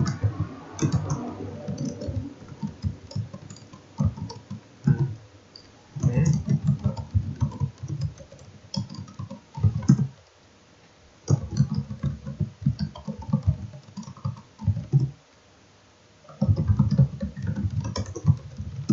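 Typing on a computer keyboard: bursts of rapid key clicks separated by a few short pauses.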